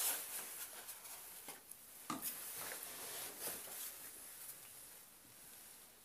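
Faint, scattered small knocks and rubbing of hands handling things, with one clearer knock a little after two seconds in, as a bottle of calligraphy ink is brought to the table.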